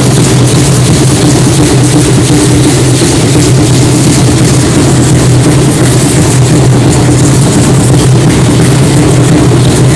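Continuous, overloaded accompaniment to an Aztec Chichimeca dance: dancers' seed-pod ankle rattles (ayoyotes) shaking as they step, over a steady low drone from the drumming. The sound is so loud it distorts, with no single beat standing out.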